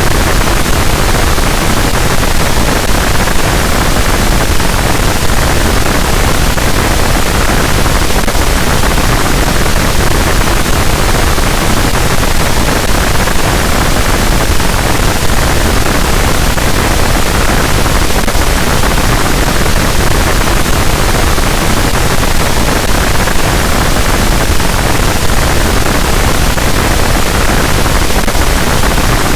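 Harsh noise wall: a loud, unchanging wall of dense static noise across the whole range, with no rhythm, tones or breaks.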